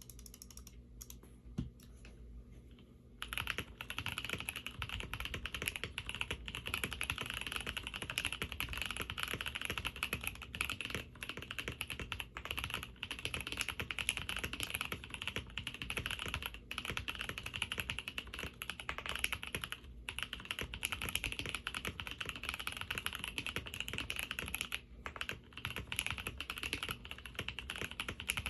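KBD67 Lite R3 custom mechanical keyboard being typed on fast and continuously, starting about three seconds in after a few scattered key presses. NK Blueberry tactile and lubed Aqua King linear switches under PBT keycaps, in a polycarbonate-plate board filled with foam and polyfill to take out hollowness and ping.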